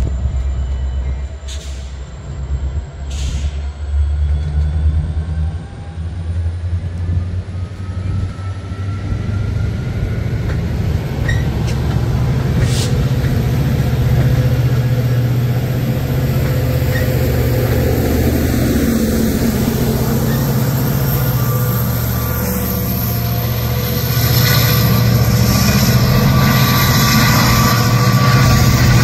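Metra bilevel commuter coaches rolling past on the rails with a steady low rumble and a faint whine that rises slowly in pitch. Near the end the sound turns louder and brighter as a Metra diesel locomotive approaches.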